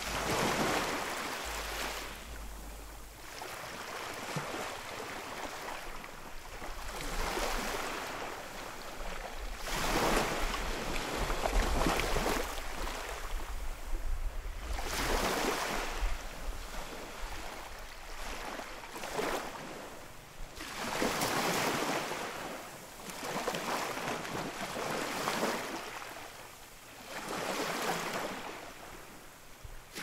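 Sea waves breaking on a shore: a wash of surf that swells and fades every three to five seconds.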